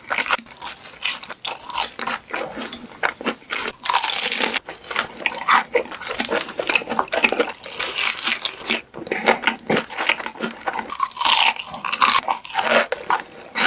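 Chocolate breaking: a dense run of sharp snaps and crackles, with a longer stretch of crackling about four seconds in.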